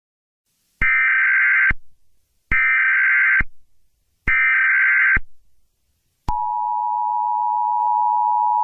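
Emergency Alert System SAME header: three short, identical bursts of digital data tones, followed about six seconds in by the steady two-tone EAS attention signal.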